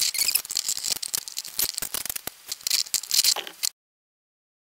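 Hands handling a 3D-printed plastic watch frame: a rapid run of small clicks, knocks and scraping rustles. The sound stops abruptly about three and a half seconds in.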